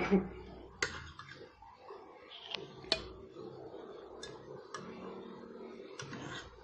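A metal spoon clinks and taps against a colander and a ceramic plate as cooked broccoli is served. The sharp clicks come irregularly, about eight in all, the loudest right at the start and near the three-second mark.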